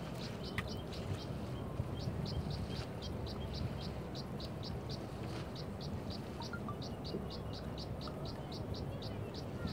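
Short high-pitched chirps from small wildlife, repeating steadily about four or five times a second, over a low steady rumble.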